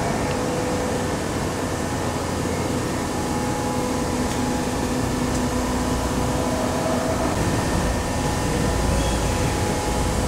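Steady mechanical hum and noise, with a few faint steady tones underneath.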